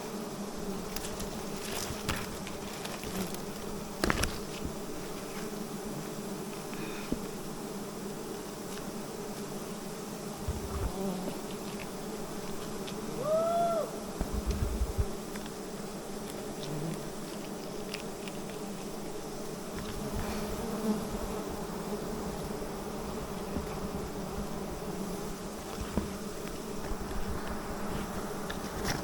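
A swarm of honeybees buzzing steadily in a continuous hum. A few short knocks come through, and about halfway there is one brief call that rises and falls.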